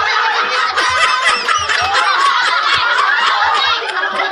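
A group of people laughing together, many voices overlapping at once.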